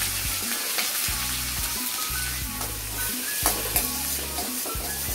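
Chopped onions and green chillies sizzling in hot oil in a stainless steel kadai, stirred with a steel ladle that scrapes and clicks against the pan a few times.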